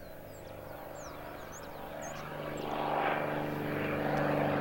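Piston propeller engine of a low-flying crop-spraying airplane, growing steadily louder as the plane approaches on a spray pass.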